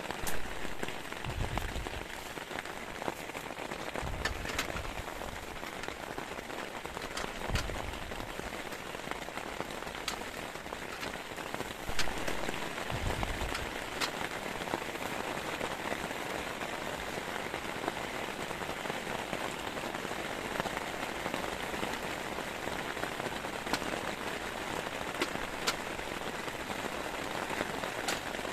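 Heavy rain falling steadily, with scattered louder drops ticking sharply close by.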